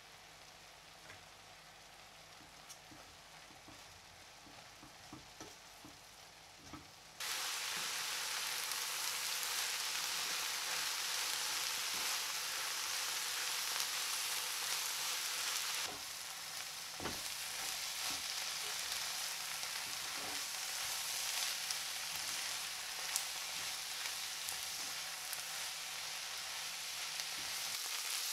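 Sliced onions frying in butter and olive oil in a pan as they caramelize. The sizzle is faint with small crackles at first, then a loud, steady sizzle starts suddenly about seven seconds in. A wooden spatula scrapes and stirs through the onions.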